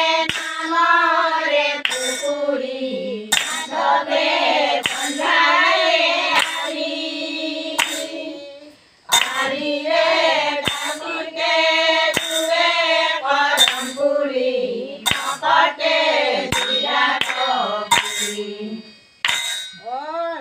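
Group of women singing Assamese devotional naam together, keeping time with steady hand claps. The singing breaks off briefly about nine seconds in and then resumes.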